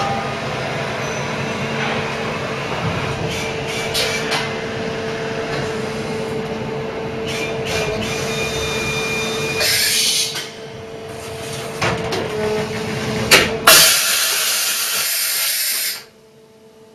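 Mori Seiki MH50 horizontal machining centre running, with a steady hum while its pallet index table turns and a few clicks. There is a short hiss near ten seconds and a longer, louder one from about fourteen to sixteen seconds, after which the noise drops off suddenly.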